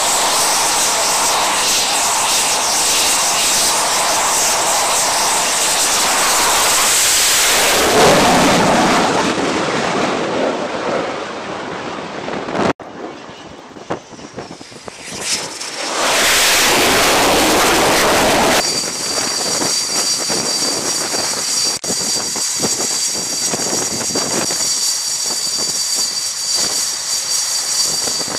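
T-45 Goshawk's single Rolls-Royce Adour turbofan running steadily at high power on the catapult, surging about eight seconds in, then fading away as the jet launches. After a quieter stretch a jet swells to loud again for a couple of seconds, and then a steady jet whine with several high tones runs on.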